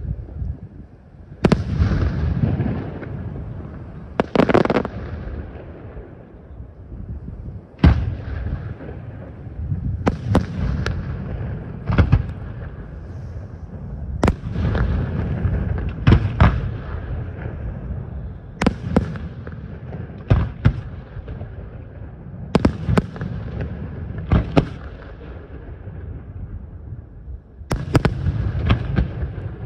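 Aerial firework shells bursting in a steady series, a sharp bang every second or two, some in quick pairs. Each bang trails off in a low rolling rumble and echo.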